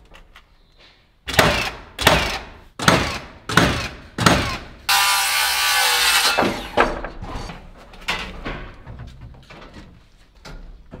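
A cordless impact driver is driving fasteners into timber framing. It gives about five short bursts, roughly two-thirds of a second apart, then one longer run of about a second and a half, followed by fainter knocks of wood being handled.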